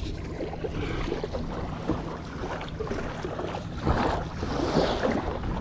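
Wind buffeting the microphone over the wash of river water at the bank, with a louder gust about four seconds in.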